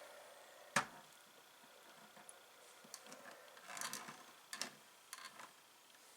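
A sharp click about a second in, then soft rustling and a few light clicks and taps from hands handling fabric pieces and quilting tools.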